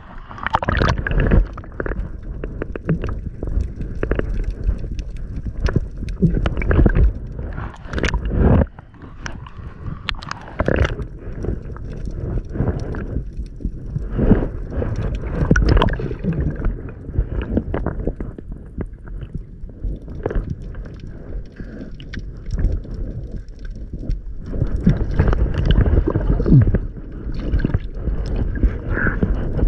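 Seawater sloshing and gurgling around a camera held at and below the surface, with a muffled low rumble and many irregular knocks and clicks from the water moving against it.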